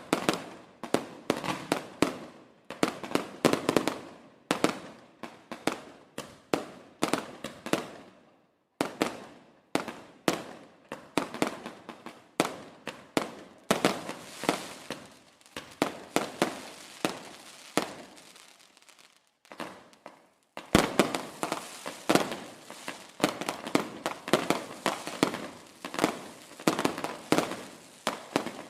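Fireworks going off in rapid volleys: sharp bangs and crackling, several a second, each dying away quickly. There is a short lull about two-thirds through before the bangs start again suddenly.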